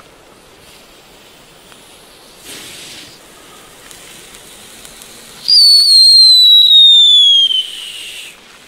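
Moon Scape firework fountain from 1998 burning: a brief hissing rush, then, about halfway through, a loud whistle that slides steadily down in pitch for nearly three seconds and cuts off abruptly.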